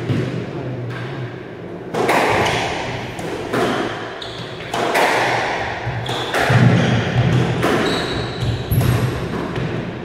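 Squash rally: the ball cracking off rackets and the court walls about once a second, each hit echoing in the enclosed court. There are short high squeaks of shoes on the wooden floor in the second half.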